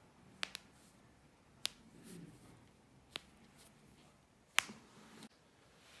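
Sharp joint cracks from chiropractic manipulation: a quick double pop, then single pops a second or more apart, the loudest about four and a half seconds in. These are the audible cavitation of joints as they are adjusted.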